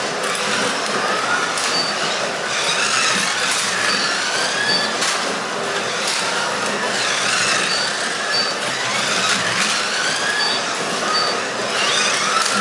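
Carrera Digital 1/24 scale slot cars racing: their small electric motors whine, rising and falling in pitch as they speed up and brake through the corners, over the rumble of the cars running on the plastic track. Short high beeps sound now and then.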